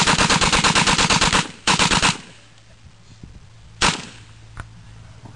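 Machine gun firing fully automatic: a long burst of rapid, evenly spaced shots lasting about a second and a half, a short burst just after, then a single shot about four seconds in.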